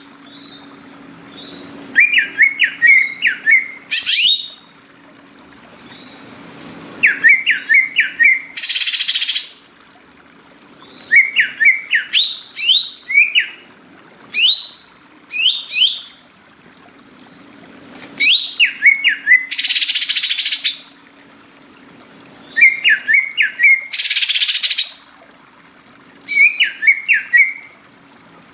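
Cucak ijo (leafbird) singing: phrases of quick, rising whistled notes repeated every few seconds, broken by short, harsh rasping bursts about a second long, with a faint steady hum beneath.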